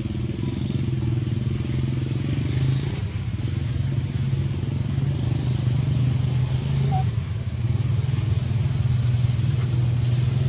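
An engine running steadily at an even, low pitch, with no revving.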